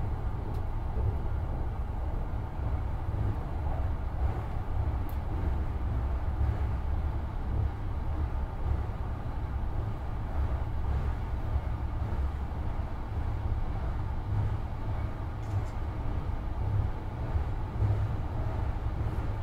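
Marine Liner electric train running at speed across a steel truss bridge, heard from inside the passenger car: a steady, deep rumble with no breaks.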